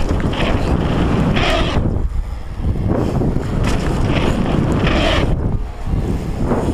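Wind buffeting the action camera's microphone and tyres rumbling over dirt and gravel as a downhill mountain bike is ridden fast, with several short louder hissing surges along the way.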